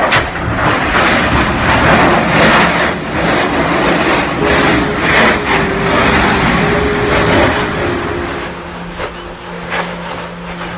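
Erupting lava fissures on Kilauea roaring: a loud, steady rush of noise broken by repeated sharp bursts of gas and spatter. It eases off somewhat near the end.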